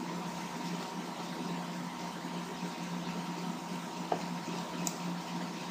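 Steady hiss and low hum of recording background noise, with a couple of faint clicks about four and five seconds in.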